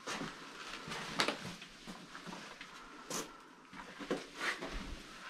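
A handful of irregular knocks and crunches, about five in all, spaced unevenly over a faint hiss; one just after the three-second mark is a thin, high-pitched click.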